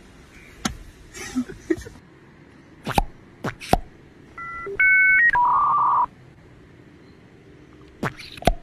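Scattered sharp clicks or pops. About halfway through comes a quick run of electronic beeps like phone keypad tones, ending in a louder steady beep of about half a second. More clicks follow near the end.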